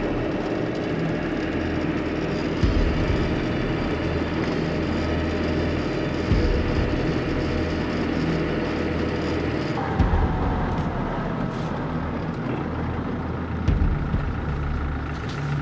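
Car driving at night, engine and road noise heard from inside the cabin, with a thump every three or four seconds.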